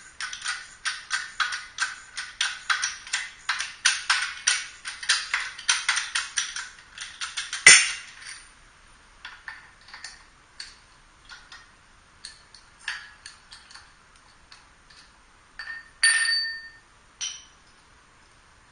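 Rapid light clicking, about five a second, that ends about eight seconds in with one sharp knock; then scattered light clinks and, near the end, a brief metallic ring.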